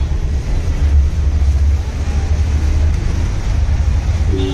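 Steady low rumble of road traffic and running engines. Near the end comes a short, flat two-tone vehicle horn beep.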